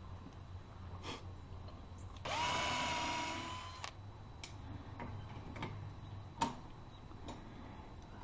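Power drill run in one burst of about a second and a half, its motor whine rising quickly and then holding steady, while driving or drilling into the door hardware. A few light clicks and knocks of handling follow, with one sharper knock near the end.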